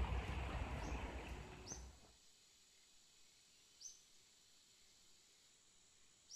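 Outdoor noise with a low rumble that cuts off about two seconds in. Then near quiet, with a few short, high bird chirps spaced a couple of seconds apart.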